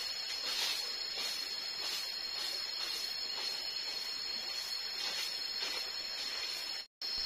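A steady, high-pitched drone of forest insects, with faint swishing strokes repeating about every half second. The audio drops out for a moment near the end.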